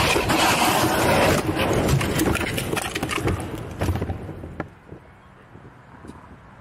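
A crashed motorcycle sliding on its side across asphalt and into a grass verge, loud scraping with many clattering knocks that fade out as it comes to rest about four and a half seconds in. The bike went down after losing grip on an oil stain on the road.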